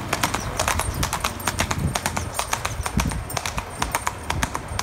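A horse cantering on a road: a quick, irregular run of hoofbeats, several strikes a second.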